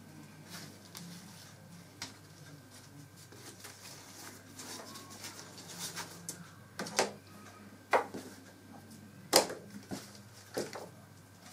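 Green corn husks rustling as hands tuck them over and between corn cobs in an enamel pot, with a few sharp clicks and knocks in the second half, the loudest about nine seconds in.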